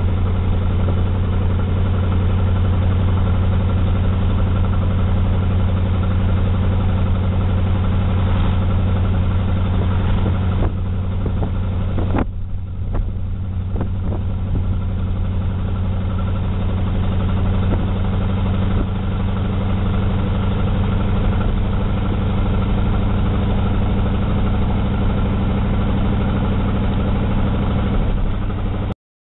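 Car engine running steadily with road noise, heard from inside the cabin while driving; a deep, even hum. It eases briefly about eleven to thirteen seconds in, then carries on, and cuts off suddenly near the end.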